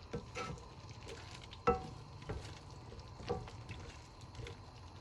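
A spoon stirring butter chicken sauce in a pot over low heat, with faint sizzling and scattered light knocks; one sharp ringing clink of the spoon on the pot about a second and a half in.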